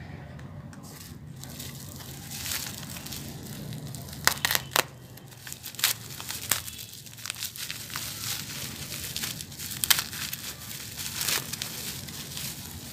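Plastic bubble wrap crinkling and crackling as it is handled and unwrapped by hand, with a few sharp clicks about four to five seconds in and again about ten seconds in.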